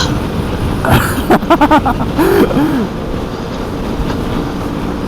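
Motorcycle riding noise at speed: strong wind rushing over the rider's microphone over the running motorcycle engine.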